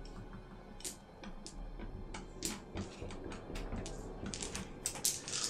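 Irregular clicking and clattering of dice being shaken and rolled for a skill test, over faint background music.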